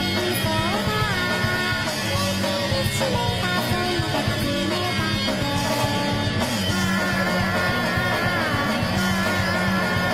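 Continuous background music: a rock song with a singing voice.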